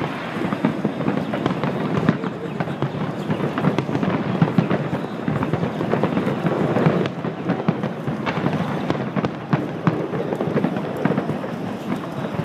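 A fireworks display going off in a dense, continuous run of bangs and crackles, with many sharp reports overlapping.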